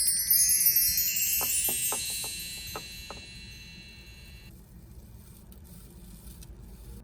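A cascade of high, shimmering wind-chime tones ringing and slowly fading, then cut off abruptly about four and a half seconds in. A few faint clicks fall under the ringing.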